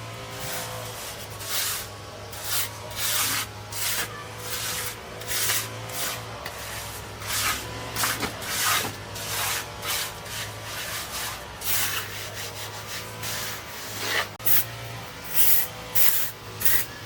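Repeated rough scraping strokes, about one or two a second, of a hand tool being rubbed across a hard surface during kitchen building work.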